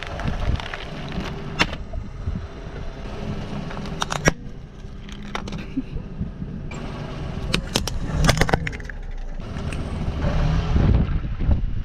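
A car tyre rolling slowly over plastic objects on asphalt, a computer keyboard and then a pocket calculator, crushing them with sharp cracks and crunches over the low rumble of the car. The cracks come singly a couple of times early on, then in a quick cluster about two thirds of the way in.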